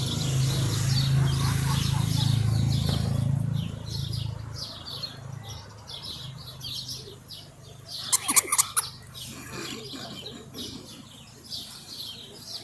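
Birds chirping continuously over a low, steady rumble that fades out about four seconds in. About eight seconds in there is a brief cluster of loud, sharp strokes, like wings flapping.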